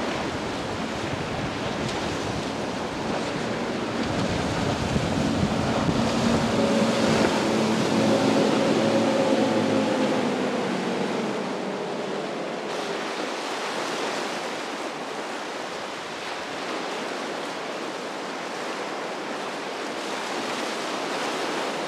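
Surf washing steadily, with wind buffeting the microphone. A boat's engine drone swells and fades between about four and eleven seconds in as the boat passes.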